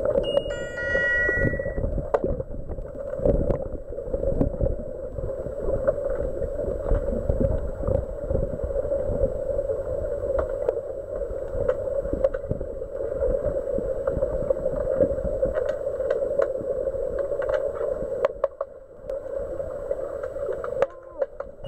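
Underwater sound of an underwater hockey game heard through the pool water: a steady hum with frequent sharp clicks and knocks from sticks and puck against the tiled pool bottom. About half a second in, a short electronic signal of several stepped tones sounds for about a second and a half.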